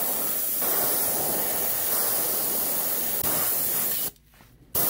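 Airbrush spraying paint: a steady hiss of air and paint, which cuts off suddenly about four seconds in and starts again just at the end.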